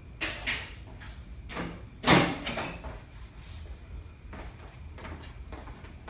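Tools and parts being handled on a workbench: a scattering of clicks and knocks, one louder knock about two seconds in.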